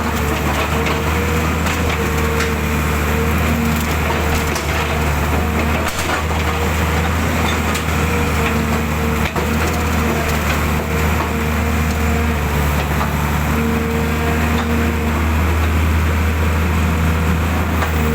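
Excavator's diesel engine running steadily under working load, with a hydraulic whine that rises in and drops out every few seconds as the arm moves, over a continuous crackling noise from the digging.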